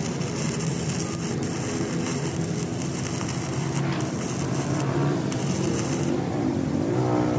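A machine running steadily under a constant hiss, its hum wavering in pitch near the end.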